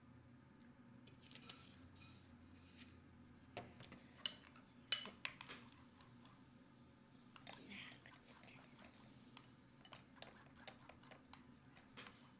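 Scattered light clicks and taps of small objects being handled, the loudest about five seconds in and a quick run of them near the end, over a faint steady hum.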